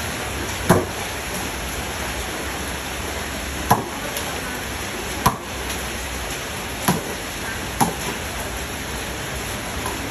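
Steady rain falling on shallow standing water over brick paving, with five sharp splashing slaps at uneven intervals as a ball is slapped down into the water.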